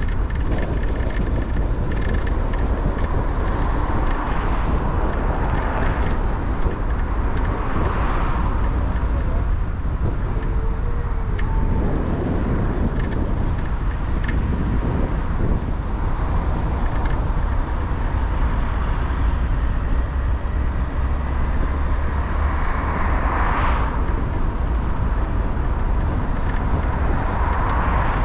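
Steady road and engine noise of a car being driven, with a strong low rumble and a few brief swells of noise as other traffic goes by.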